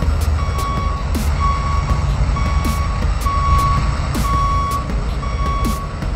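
Truck reversing alarm beeping about once a second, a single steady tone, over a continuous low engine rumble, with sharp clicks now and then.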